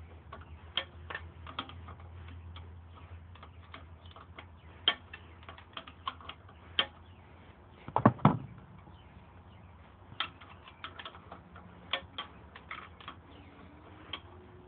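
Irregular metal clicks and taps of a hand wrench being refitted and turned in short strokes on a bolt wedged in behind a motorcycle highway bar, with a louder clatter of a few knocks about eight seconds in.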